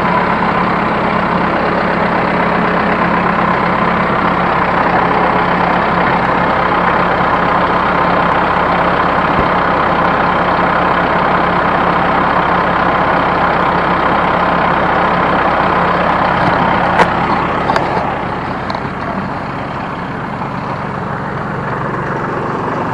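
New Holland T1510 compact diesel tractor running steadily while driving a New Holland 269 Hayliner square baler through the PTO. Two sharp clicks come near the end, and then the sound gets somewhat quieter while the engine keeps running.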